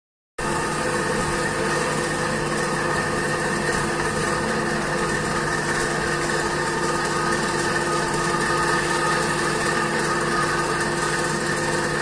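Steady machine drone of workshop machinery running, holding the same pitch throughout.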